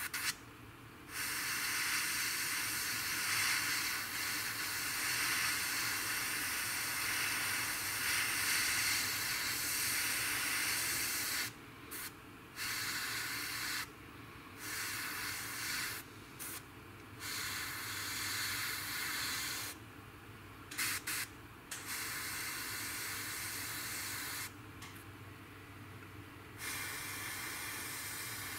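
Airbrush spraying black paint onto a small model canopy: a steady hiss in on-off passes, one long pass of about ten seconds, then several shorter passes of one to three seconds with brief pauses between.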